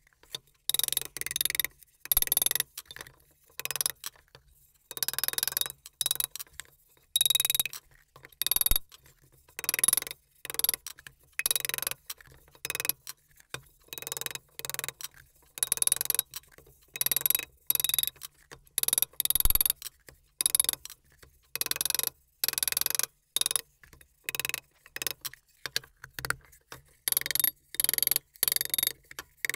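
Small hammer tapping the thin sheet-metal housing of a Lyman Moldmaster casting pot over a steel pipe, straightening out its dents. Rapid metallic taps come in short runs with brief pauses between.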